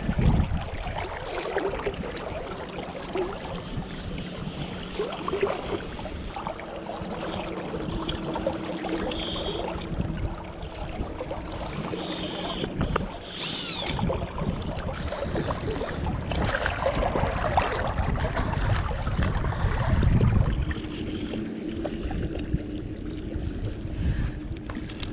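River current rushing and lapping close to a strap-on GoPro held near the water's surface, with wind buffeting the microphone in low rumbles, heaviest about twenty seconds in.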